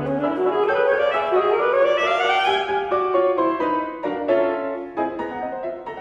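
Alto saxophone and Steinway grand piano playing classical music. The saxophone climbs in a rising run over about two seconds, then comes back down in quick stepped notes, over the piano's struck notes.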